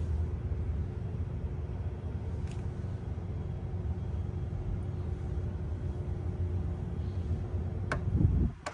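A steady low mechanical rumble with a faint steady hum. A sharp click comes about eight seconds in, and the rumble drops away abruptly just after it.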